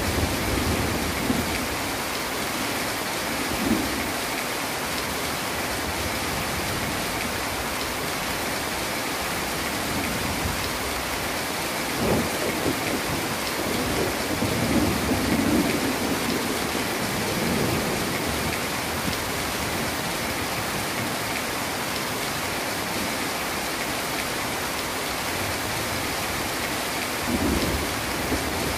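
Heavy tropical rain falling steadily, with low rumbles of thunder rolling in several times, the strongest around the middle and near the end.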